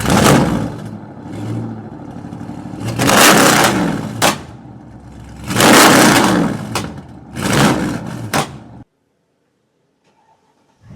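Car engine and exhaust revved hard about four times, each surge rising and then falling back to a lower idle. Some revs end in a sharp crack. The sound cuts off abruptly about two seconds before the end.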